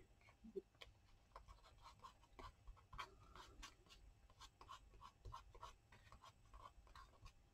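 Faint rustling and light taps of a paper cutout being handled and pressed onto a journal page.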